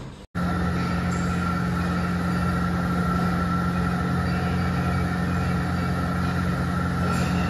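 A steady, loud machine-like drone with a constant low hum and a fainter higher whine, unchanging throughout; it starts abruptly a moment in, right after a brief dropout.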